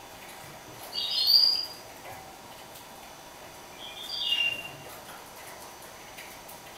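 Caged mule, a hybrid finch, giving two short high chirping calls, one about a second in and another about four seconds in.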